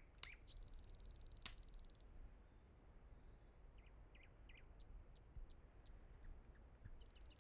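Near silence: faint room tone with a few faint chirps and ticks.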